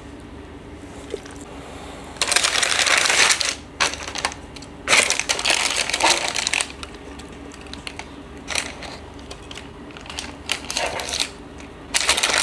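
Crinkly wrapping being handled and crumpled in rustling bursts. Two long bursts come about two and five seconds in, short ones follow, and another starts near the end.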